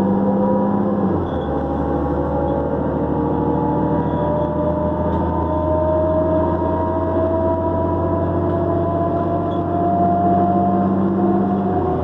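Diesel engine of a New Flyer D40LF transit bus running under load, with a turbocharger whine that climbs slowly in pitch as the bus picks up speed.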